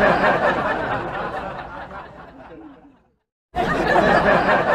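Canned laughter sound effect, a crowd laughing. It fades away over about three seconds, stops for half a second, then starts again at full loudness.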